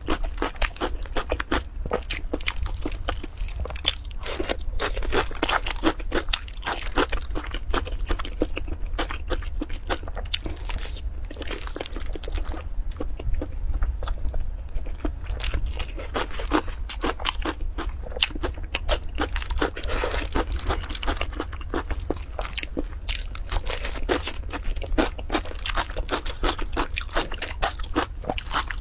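Close-miked eating: continuous crunching and chewing with many sharp, wet mouth clicks over a low steady hum, from a person eating eggs in chili sauce with sliced onion.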